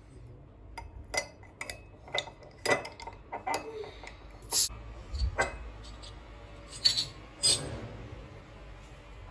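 Dishes, cutlery and glass being handled and set down: a run of separate clinks and knocks, the loudest about a third of the way in and twice more near the end.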